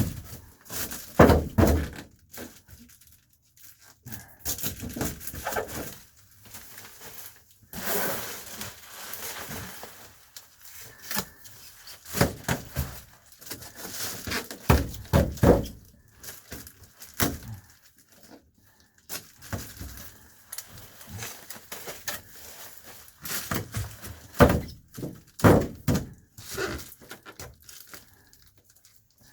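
Reflectix foil-bubble insulation and tape being handled and pressed into place: irregular crinkling, rustling and scattered thunks with no steady rhythm.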